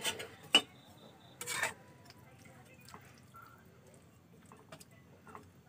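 A spatula clinks sharply twice against a wok, followed by a short scrape and quiet stirring with small ticks through the watery bean-and-potato curry.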